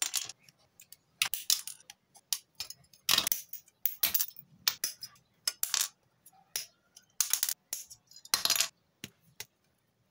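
Side cutters snipping styrene model-kit parts off their plastic sprues, with the runners clicking and rattling as they are handled: an irregular run of sharp snips and clicks with a few short rustling clatters.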